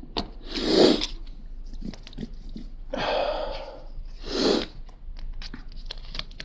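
Lego pieces and sticker sheet being handled: scattered small plastic clicks with three short rustling, crinkling noises, about a second in, three seconds in and four and a half seconds in.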